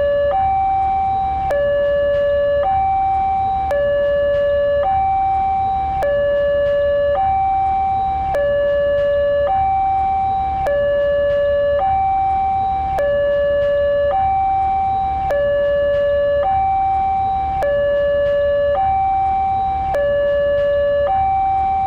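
Indonesian railway level-crossing warning alarm: an electronic two-tone signal switching between a lower and a higher pitch about once a second, with a click at each change, warning that a train is approaching.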